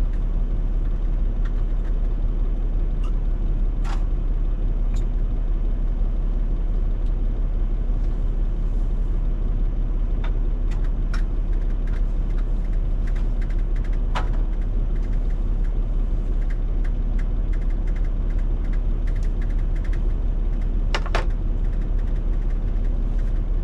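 Semi truck's diesel engine idling, a steady low rumble heard from inside the cab, with a few small clicks and knocks now and then.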